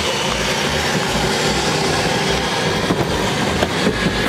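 Battery-powered Power Wheels ride-on fire truck driving: its electric drive motors and gearbox whirring as the hard plastic wheels roll over concrete, a steady grinding rumble, with a few light knocks about three seconds in.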